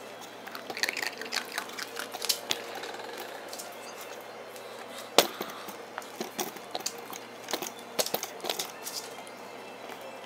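Scattered irregular clicks and taps from dogs moving about on a parquet floor, with one sharp knock about five seconds in, over a steady low room hum.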